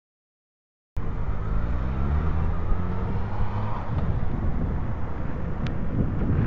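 Silence for about the first second, then outdoor sound cuts in suddenly: a car engine passing, its hum gliding in pitch, over a dense low rumble of wind on the microphone.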